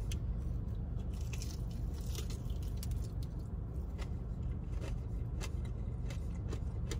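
Chewing a breaded fried chicken tender with the mouth closed: many small crunches and crackles of the breading, over a steady low hum inside a car.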